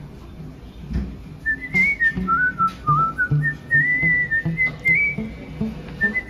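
Background music: a whistled melody over a steady, low-pitched accompaniment, with the whistled tune coming in about a second and a half in.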